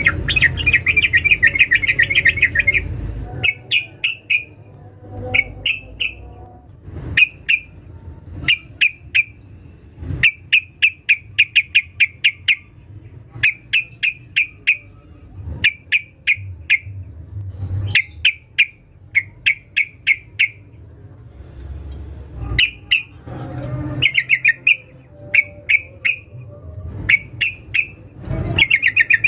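Yellow-vented bulbul (trucukan) female calling: short, rapid chattering runs of sharp notes, each about a second long, with single chirps between them and repeated again and again, a call used to draw in males.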